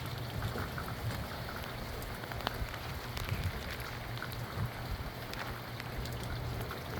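Steady rain falling on outdoor surfaces, with scattered single drops ticking, over a steady low rumble.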